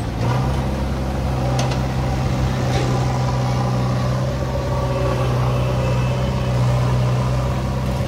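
JCB 3DX backhoe loader's diesel engine running steadily under load as the backhoe digs soil and lifts a full bucket, with two faint knocks in the first three seconds.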